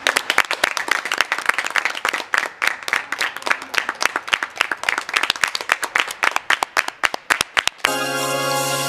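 A group of people clapping, dense and irregular, thinning out just before the end. Music with plucked-string notes then starts about eight seconds in.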